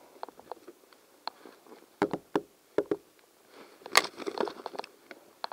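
Knuckles rapping on a front door, a few knocks about two seconds in, followed by a paper takeaway bag crinkling and rustling as it is handled, loudest about four seconds in.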